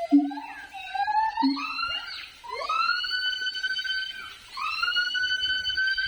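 Siamang calling: a whoop that climbs steadily in pitch over about two seconds, then long high notes, each starting with an upward swoop. Two short low booms come in the first second and a half.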